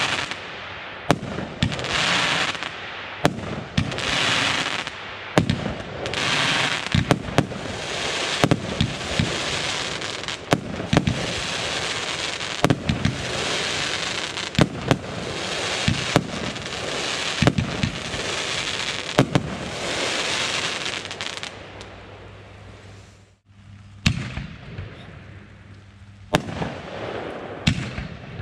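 Consumer firework battery firing a series of shots, about one a second, each a sharp bang followed by a hissing crackle. The sound drops out briefly about three-quarters of the way through, then more spaced-out bangs follow.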